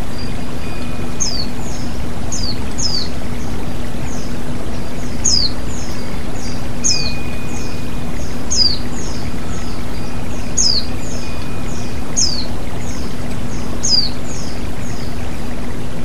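Stream rushing over rocks below a small waterfall, a steady rush of water. Over it a bird whistles sharp, high, downward-sliding notes, repeated every one to two seconds from about a second in, each followed by fainter short notes.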